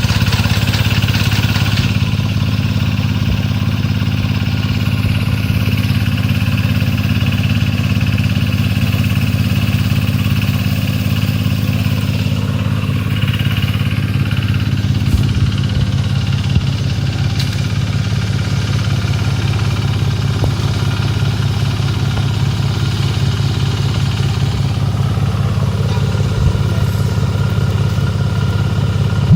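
Small engine of a motorised rice reaper running steadily at constant speed, with a few faint clicks.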